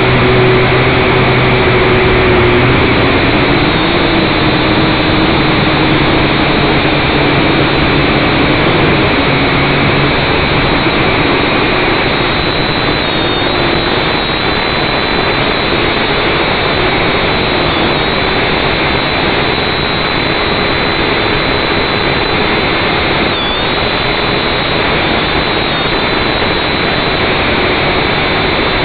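Small FPV drone's electric motors and propellers, picked up by its onboard camera: a loud, steady whir whose pitch wavers up and down as it flies.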